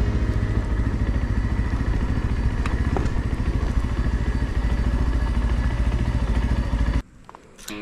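Brixton Cromwell 125's single-cylinder four-stroke engine running steadily as the motorcycle rides along. The sound cuts off suddenly near the end.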